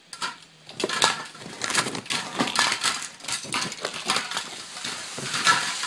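Spray paint cans and loose plastic spray caps being handled and rummaged through, giving a busy run of small clicks and clatters.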